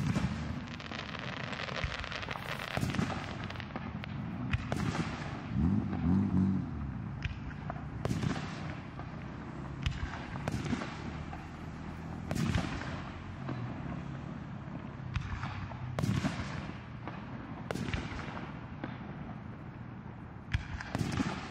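Aerial firework shells bursting in the night sky: an irregular run of booms, roughly one every second, each trailing off in an echo.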